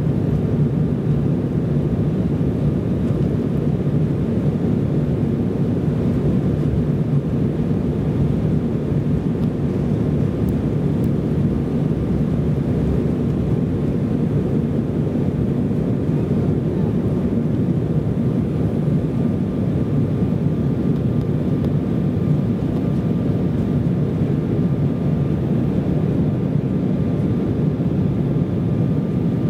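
Cabin noise of an Embraer ERJ-170 on its takeoff roll and climb-out, heard from a rear seat: its turbofan engines at takeoff power make a steady low rumble, with a faint steady whine above it.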